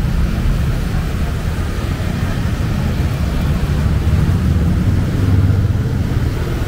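City street traffic: a steady low rumble of passing vehicle engines, swelling a little about four to six seconds in.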